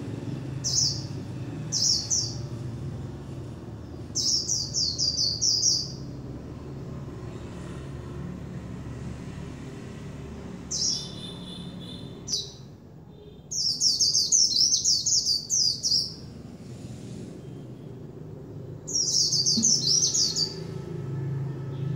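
Caged white-eye (khuyên) singing: short high chirps, then several bursts of fast, high-pitched twittering warble a second or two long, separated by pauses of a few seconds.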